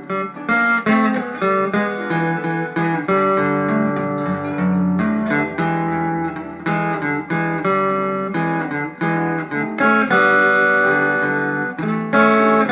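Fender Telecaster electric guitar played on its neck pickup through a tube amplifier: a run of single picked notes with some notes sounded together, and a few longer held notes after about ten seconds.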